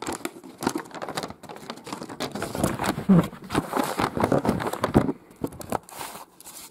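A glossy paper fold-out booklet rustling and crinkling as it is handled and unfolded. The sound is busiest for the first five seconds, then dies down.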